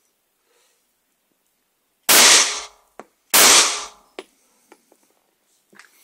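Two gunshots about a second and a quarter apart, each with a short trailing echo, followed by a few faint clicks.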